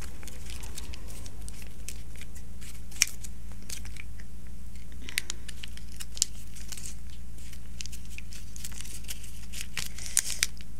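Plastic foil sauce sachets crinkling in the hands and being snipped open with kitchen scissors: irregular crackly rustling with sharp clicks and snaps, a few louder snaps about three, five, six and ten seconds in.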